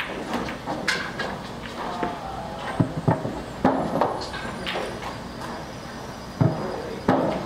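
Pool balls clicking and knocking during play: a series of sharp, irregularly spaced knocks, with low voices in the background.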